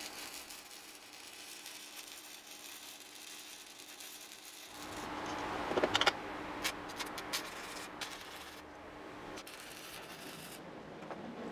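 Stick (arc) welding of mild steel offcuts: the electrode arc gives a steady crackling hiss, louder from about halfway. A few sharp clicks come about six seconds in.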